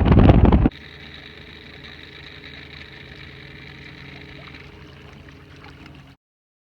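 Wind rushing loudly on the microphone, cut off abruptly less than a second in. Then a steady low engine hum at idle, which stops abruptly near the end.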